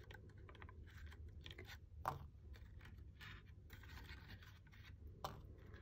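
Faint handling noises of a cardstock paper purse and wooden clothespins: soft scraping and rustling with scattered small clicks, the sharpest about two seconds in and again near the end.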